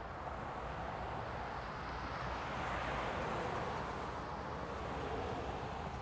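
Outdoor traffic noise: the rush of a passing car swells to its loudest about halfway through, then fades away.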